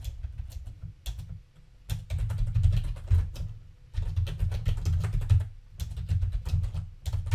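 Typing on a computer keyboard: quick runs of keystrokes in several bursts with brief pauses between them.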